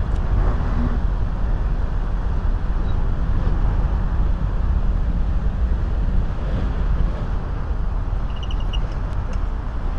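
Steady city traffic noise from cars passing through an intersection, dominated by a constant deep rumble, with a brief faint high squeak late on.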